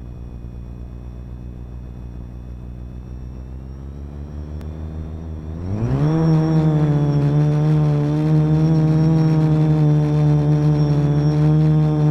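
Quadcopter's electric motors and propellers turning slowly at idle, then spinning up with a rising whine about six seconds in as it lifts off. After that they hold a loud, steady hum. Heard close up from a camera mounted on the aircraft.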